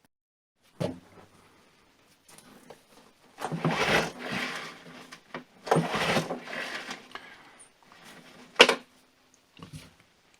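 Stihl BR 600 leaf blower's recoil starter pulled twice, each pull a noisy whir about a second long, cranking the engine over with an in-line spark tester on the plug to check the magneto's spark. A sharp knock comes before the pulls and a louder one after.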